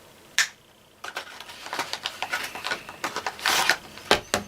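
Plastic food pouch being handled and torn open by hand: irregular crinkling and clicking, with a louder tearing rasp about three and a half seconds in.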